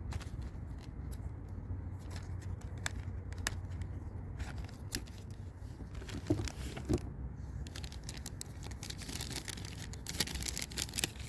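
Handling noise of a small plastic RC airplane and its packaging: scattered light clicks and rustling, two louder knocks about six and seven seconds in, and a denser stretch of rustling near the end.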